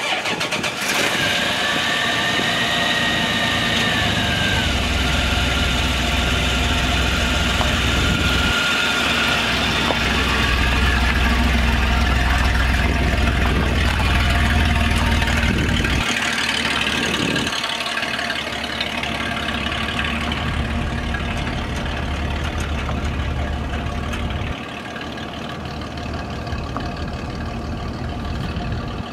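The 1989 Dodge D150's 3.9-litre V6 gas engine starting and running, with a high whine that rises and falls over the first few seconds. The low rumble is heavier through the middle, and the engine runs quieter for the last few seconds.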